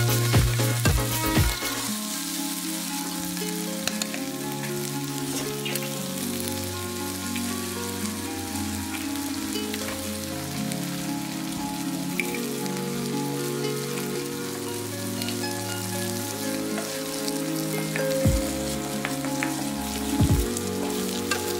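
Food sizzling in a nonstick frying pan as shredded chicken and green onions are stir-fried and an egg fries beside them, with the wooden spatula scraping and knocking on the pan. The stirring is louder in the first two seconds, with a few sharp taps near the end. Soft background music with sustained notes plays throughout.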